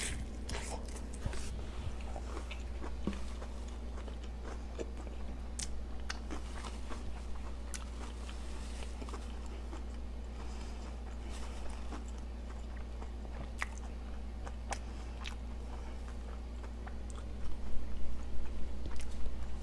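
Close-miked chewing of a bacon cheeseburger, with wet mouth clicks and light crunches over a steady low hum; the chewing gets louder near the end.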